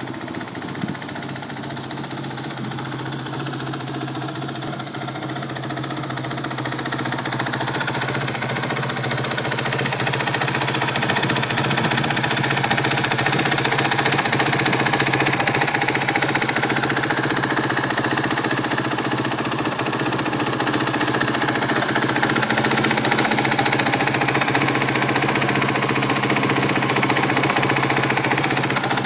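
Honda CRF250X's single-cylinder four-stroke engine idling steadily. It grows louder over the first ten seconds or so, then holds even.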